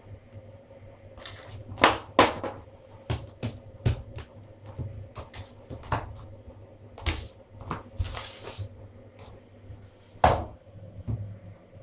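Clear plastic deli cups and lids clicking and knocking against each other and the surface as they are handled, set down and stacked, with a brief rustling scrape about eight seconds in.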